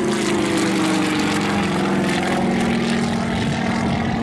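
Yak-52's nine-cylinder M-14P radial engine and propeller droning steadily in aerobatic flight, the pitch dropping slightly near the start.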